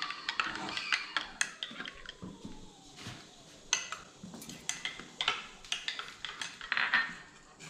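Kitchen utensils and dishes clinking: a run of irregular light clinks and knocks, as of a spoon against cups and bowls.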